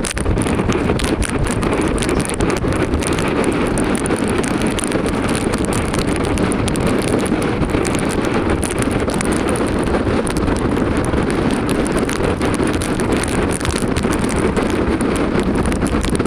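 Strong mountain storm wind buffeting the microphone: a loud, steady low rush with constant small gust thumps.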